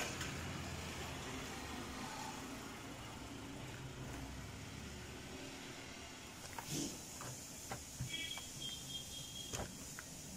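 A few faint clicks and scrapes from a small screwdriver working at the plastic hinge pivot of a hair straightener, mostly in the second half, over steady low background noise.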